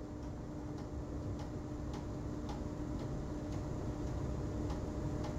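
Faint ticking about once a second over a steady low hum.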